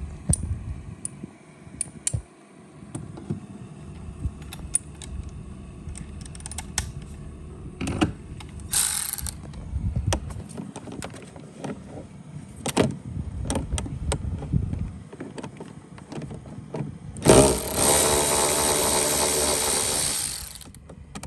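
Scattered clicks and clinks of hand tools on a 10mm bolt and metal door parts as a fastener is worked loose. Near the end a louder steady mechanical whirring runs for about three seconds.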